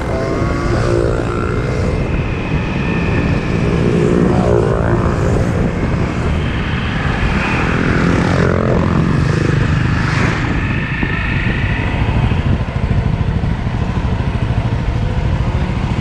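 Motorcycle engine running steadily at close range, a continuous low rumble.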